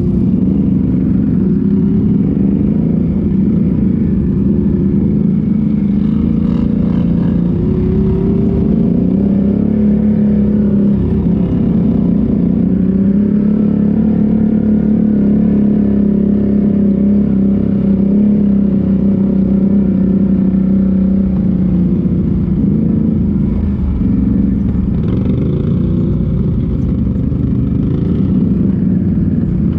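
ATV engine running steadily on the move. Its pitch rises about a quarter of the way in, holds steady, and drops back a little near the end as the throttle eases.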